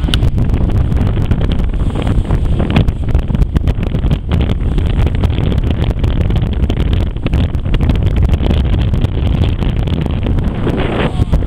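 Strong wind buffeting the microphone aboard a car ferry in rough sea: a loud, unbroken rumble with constant crackle from the gusts.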